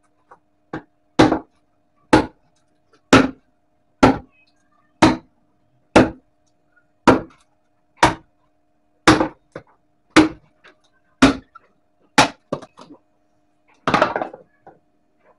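A tool striking something hard about a dozen times, roughly once a second, each strike sharp and brief; the last one, near the end, is longer and rougher.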